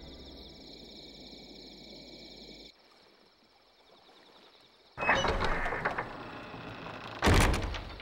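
Night ambience with a steady high chirring of insects, then a short hush, then a few seconds of noisy clatter ending in a loud thump about seven seconds in.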